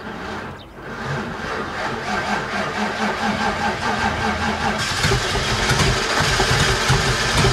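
Demolition-derby car's engine in a slow start: the starter cranks it over in a steady rhythm for several seconds, and it gets louder from about five seconds in as the engine catches and runs.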